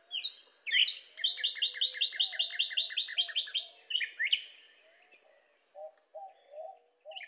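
Northern cardinal singing: two slurred whistles, then a fast run of repeated down-slurred notes lasting about two and a half seconds, closing with two more slurred whistles. Fainter, lower warbling notes from another bird follow near the end.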